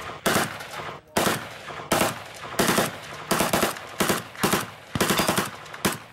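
Full-auto rifle fire in short bursts, about nine in all, each a quick rattle of several shots.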